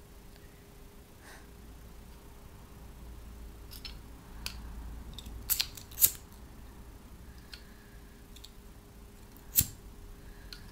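Handheld lighter being clicked repeatedly: a handful of sharp clicks, the loudest in the middle and one more near the end, over a faint steady hum.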